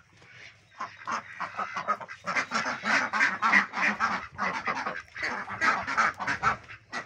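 Flock of domestic ducks quacking, many short calls overlapping several times a second.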